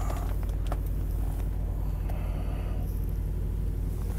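Semi truck's diesel engine idling, a steady low rumble.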